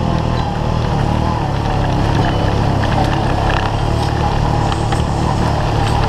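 Honda Pioneer 500 side-by-side's engine running at a steady speed while driving along a dirt trail, with scattered light rattles and knocks over the bumps.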